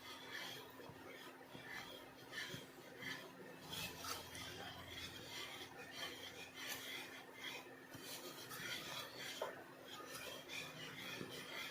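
A utensil stirring and scraping around a pan of chocolate pudding mixture as it cooks and thickens, in irregular rasping strokes.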